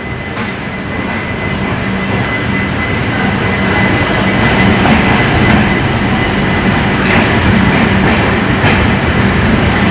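Passenger train running: a steady rumble and hum that grows louder over the first few seconds, with a few light clicks later on.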